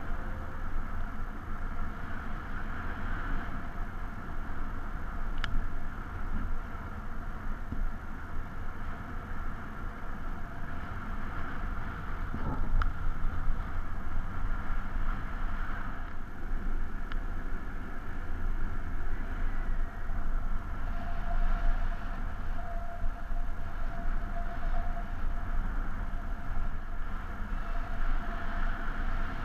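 Wind rushing over the harness-mounted camera's microphone during paraglider flight, a steady low rumble.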